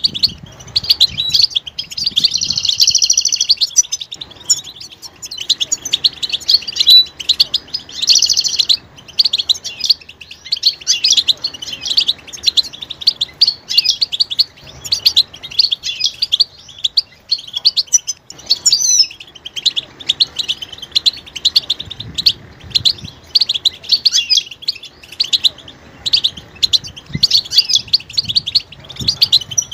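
European goldfinches calling and twittering in rapid, unbroken runs of high chirps, with two louder, denser flurries, one about two seconds in and one about eight seconds in. These are goldfinch mating and readiness calls, the kind played to a quiet male to set him singing.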